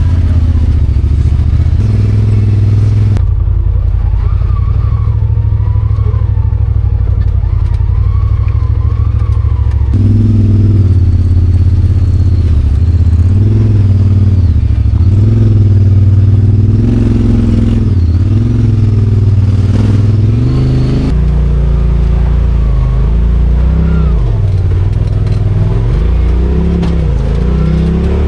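Side-by-side UTV engine running loud, its pitch rising and falling as it revs up and back off.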